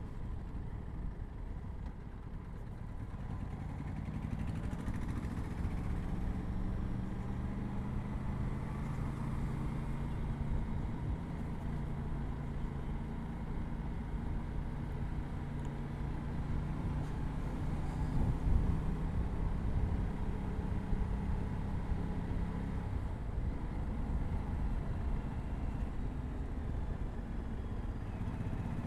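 Aprilia RS 457's parallel-twin engine through its stock exhaust, running at a fairly steady pitch while riding, over a low road and wind rumble. The engine note grows louder a few seconds in, holds steady, and fades back into the rumble about three quarters of the way through.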